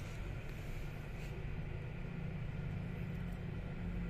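Steady low machine hum with a light hiss, and a few faint ticks.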